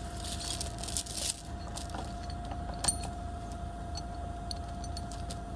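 Yale forklift idling, a low rumble with a steady whine above it, while a steel chain clinks and rattles as it is handled and wrapped around the base of a wooden fence post.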